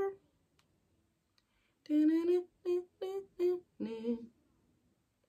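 A woman singing a few wordless 'dun, dun' syllables under her breath, about six short notes starting about two seconds in.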